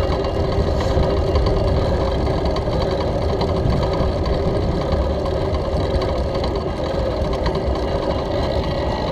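Steady rumble and vibration of a bicycle rolling over a brick-paved cycle path, picked up by a handlebar-mounted action camera.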